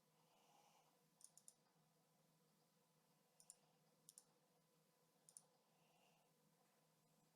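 Near silence with faint computer mouse clicks: a quick triple about a second in, then three quick pairs spread through the middle.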